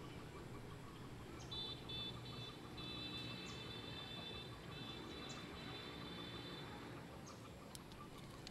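Faint outdoor background with an insect's high, steady buzzing call. It starts in short pulses about a second and a half in, then holds steady until about seven seconds.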